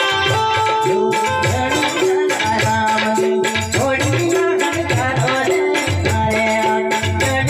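Gujarati folk music: a steady drum beat under a short melody phrase that repeats, with busy shaker-like percussion on top.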